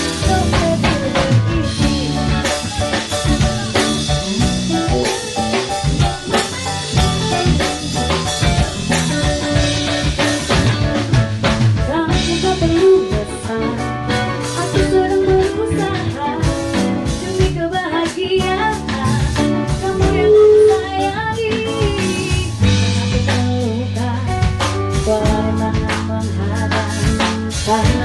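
Live band music with drum kit and guitar: an instrumental stretch of an Indonesian pop song, with little or no lead vocal.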